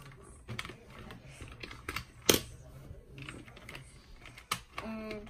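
Hard plastic toy vehicles and figures clicking and clattering as they are handled and pressed together, with one sharp click louder than the rest about two seconds in. A brief pitched sound comes near the end.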